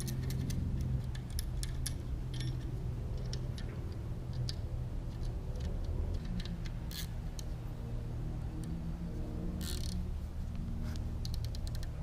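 Scattered metallic clicks and ticks of a bracket being fastened onto an alternator with hand tools, some in quick runs like a ratchet, with a short scraping burst near the end, over a steady low hum.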